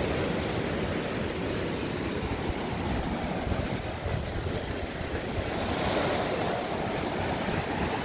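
Surf breaking and washing up a sandy beach, a steady hiss of water with one wave's wash swelling about six seconds in, under wind rumbling on the microphone.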